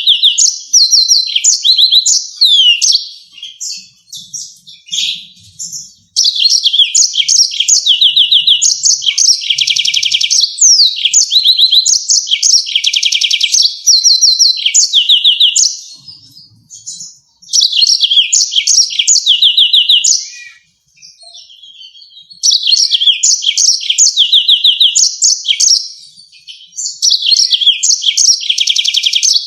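Yellow-fronted canary singing: long loud phrases of rapid trills and sharp, high repeated notes, broken by short pauses of a second or two.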